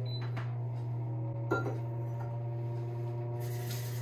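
Pampered Chef Deluxe Air Fryer running with a steady low fan hum just after being started. A clink comes about a second and a half in, and a water tap starts running near the end.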